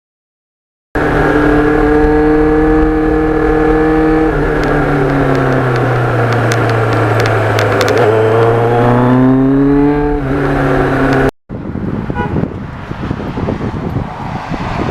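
Motorcycle engine running at a steady speed, its pitch dropping as the bike slows and rising again as it speeds up, then cut off suddenly; a rougher noise follows near the end.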